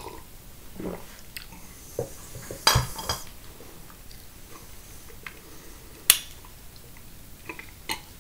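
Scattered handling noises close to the microphone: light clicks and knocks, a short rustle about three seconds in, and one sharp click about six seconds in.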